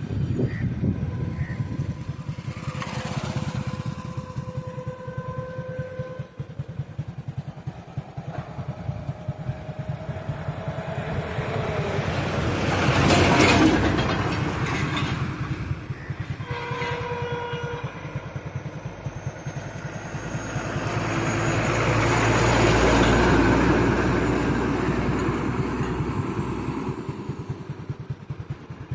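Motor vehicle engines running, with a motorcycle-like rumble, swelling louder twice as vehicles pass. Brief steady tones sound twice, early on and just past the middle.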